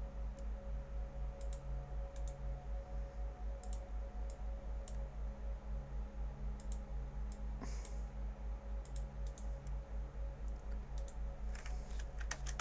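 Scattered computer mouse and keyboard clicks, with a quick run of several clicks near the end, as a circuit is wired up in simulation software. Under them runs a loud low electrical hum that pulses about four times a second.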